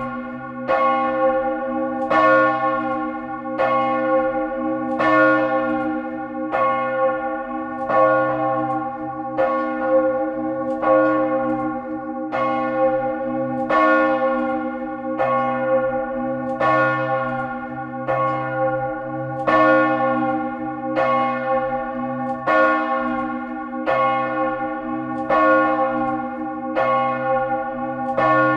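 The great bell (Grand'Cloche) of a church swinging at a high angle in full peal, its clapper striking at a steady rhythm. Each stroke rings on into the next over a constant deep hum note.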